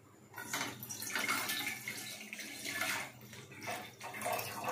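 Milk being poured into a cooking pan: a splashing pour that starts about half a second in, falters briefly near the end, then carries on.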